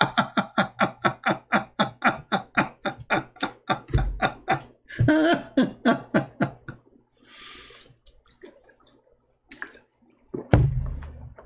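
A man laughing hard in long runs of quick pulses, about five a second, for some four seconds and again for a second or two, then a breath in and a short vocal noise near the end.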